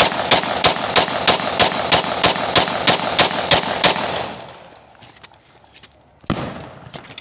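A 30 bore (7.62×25mm Tokarev) semi-automatic pistol fired in rapid succession, about three shots a second, a dozen or so sharp reports that stop about three and a half seconds in. One more single bang comes near the end.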